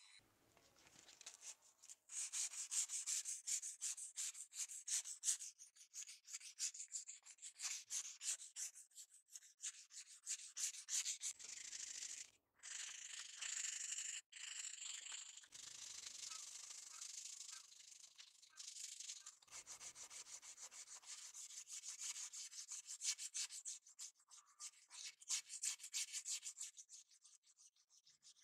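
Hand sanding of a cleaver's wooden handle and steel tang with sandpaper and a strip of abrasive cloth: quick back-and-forth rubbing strokes that break off briefly a few times.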